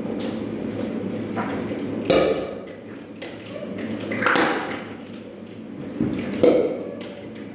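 A metal hand tool knocking and scraping against a bucket: a ringing clank about two seconds in, a longer scrape a couple of seconds later, and another knock near the end, over a steady low machine hum.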